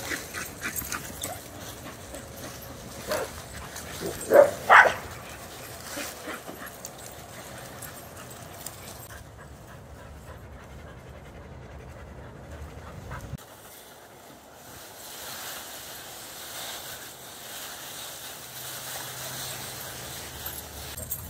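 Dogs at play in a group, panting, with two short, loud barks in quick succession about four seconds in.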